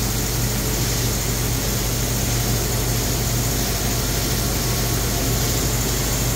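HP Multi Jet Fusion 5200-series 3D printer running a build: a steady low hum with an even hiss over it, unchanging throughout.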